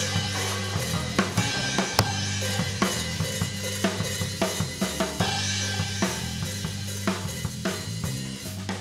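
Live rock band playing: a Tama drum kit's kick, snare and cymbals struck in a steady beat over electric bass and electric guitar.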